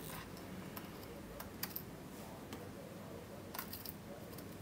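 A handful of faint, light clicks of metal tweezers picking a tiny surface-mount capacitor out of a plastic compartment parts box, over low room noise.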